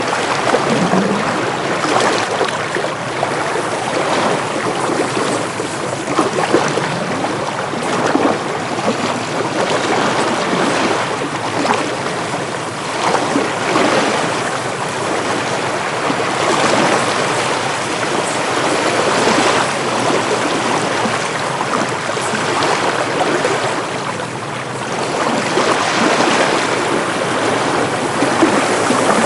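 Waves washing in with wind: a steady rushing noise that swells and eases irregularly.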